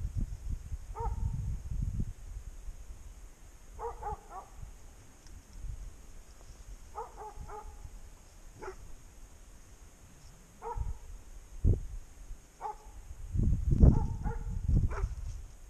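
A hunting dog barking in single barks and short runs every two to three seconds. Under the barks is the rustle and crackle of someone pushing through dry scrub, with a knock a little past the middle and the loudest brush noise near the end.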